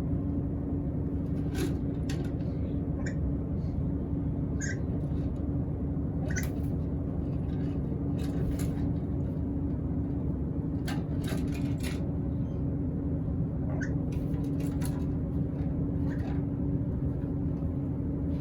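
A steady low mechanical hum with a constant tone, like a motor or fan, with scattered brief clicks and a few faint, short high chirps.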